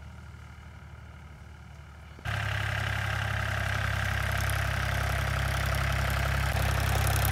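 Mahindra tractor's diesel engine running steadily as it pulls a ridger through the field. It is fairly faint at first, then about two seconds in it turns abruptly much louder and closer, with more clatter.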